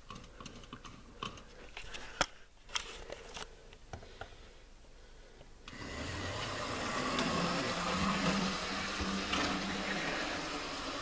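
Small clicks and knocks as a Hornby K1 OO-gauge model locomotive is set back on the track, then, about six seconds in, its electric motor and wheels start a steady whirr as it runs along the rails at speed.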